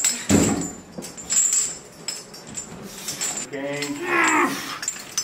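Metal clinking and clanking, typical of steel weight plates being handled, with a low thump near the start. About three and a half seconds in comes a drawn-out vocal sound that bends in pitch.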